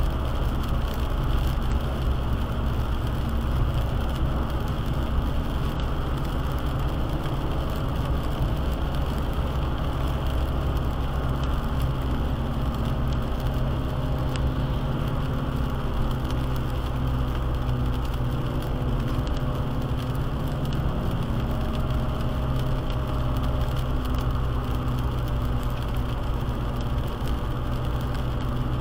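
Steady drone of a car driving on a wet highway, heard from inside the cabin: a low engine hum over the hiss of tyres on the wet road and rain.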